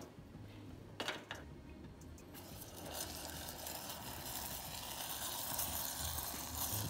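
Hot caramelised sugar poured into simmering milk, sizzling with a hiss that starts about two and a half seconds in and builds. A sharp click about a second in.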